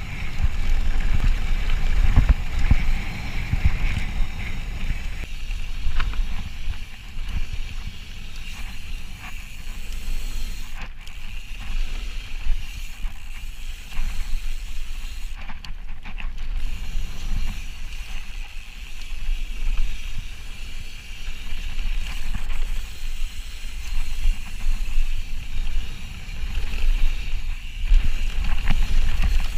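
Wind buffeting the camera's microphone with a fluctuating low rumble, over the noise of an Ibis Ripley mountain bike's tyres rolling fast on a packed-dirt trail during a downhill run.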